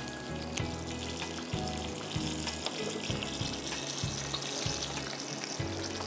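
Breaded chicken breast fillets deep-frying in a pan of hot oil, with a steady sizzle and bubbling, under background music carrying a bass line.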